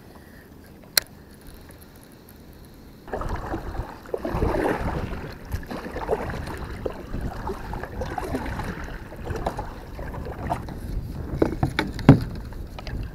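Double-bladed kayak paddle strokes, splashing and dripping water, starting about three seconds in after a quiet spell with one small click. A sharp knock comes near the end.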